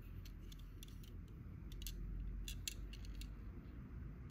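Small clicks and ticks of a diecast model car being handled and turned over in the fingers, with a cluster of sharper ticks around the middle, over a faint low steady hum.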